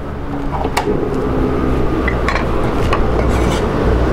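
Wok heating oil on a portable gas stove: a steady low rush with a faint hiss, broken by a few light clinks of kitchen utensils.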